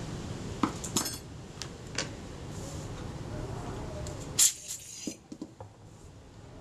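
Light clicks and clinks of a small metal lens cell and tools being handled and set down on a wooden block, a few separate taps with the loudest about four and a half seconds in.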